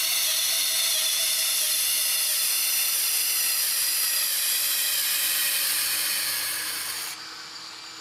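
Knife blade ground against the 180-grit belt of a 2x72 belt grinder: a steady, high abrasive hiss that stops about seven seconds in. The grinding raises a burr along the edge.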